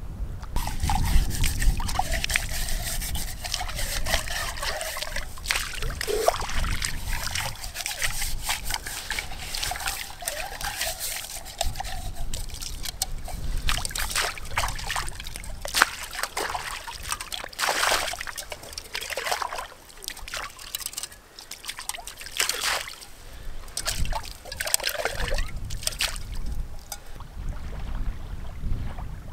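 A cooking pot being rinsed in the shallows of a loch: water sloshing, trickling and splashing in irregular strokes, with some wind rumble on the microphone.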